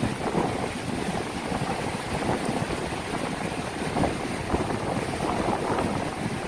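Breaking ocean surf and wind rushing across the microphone, a steady noise.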